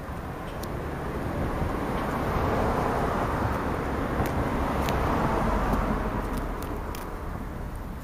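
A car passing by on a road: its tyre and engine noise swells, is loudest around the middle, and fades away. A few sharp ticks sound on top of it.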